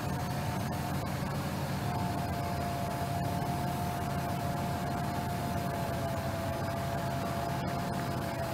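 Heavy diesel machinery running steadily at low speed: a deep rumble with a thin high whine over it that sinks slightly in pitch.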